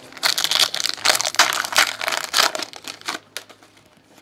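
Foil football card pack wrapper crinkling and tearing as it is pulled open by hand, a dense crackle that dies away about three seconds in, with a few light clicks after.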